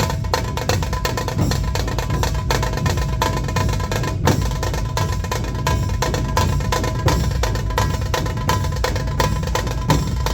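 Dhol-tasha ensemble drumming: large barrel-shaped dhol drums and tasha drums struck together in a fast, dense, unbroken rhythm.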